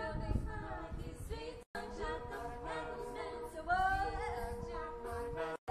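Mixed group of young voices singing a cappella in harmony, some voices holding long steady notes under the moving parts. The sound cuts out for an instant twice, once early and once near the end.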